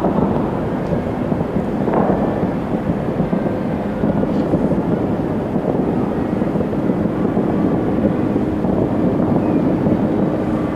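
Distant aerial fireworks bursting in quick succession, the booms merging into a continuous rolling rumble like thunder, with a sharper report about two seconds in.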